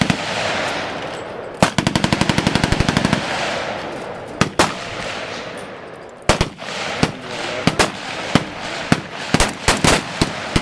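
Automatic weapons fire on a firing line: a rapid burst of about a dozen rounds a second lasting about a second and a half, then scattered single shots and short strings of shots from other guns.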